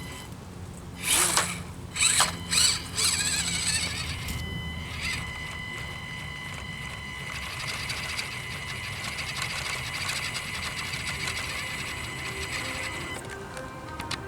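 Axial SCX24 micro RC crawler's small electric motor and gear drive whining with a steady high-pitched tone as it crawls up a rock, with a few loud knocks in the first three seconds. The whine cuts off about a second before the end.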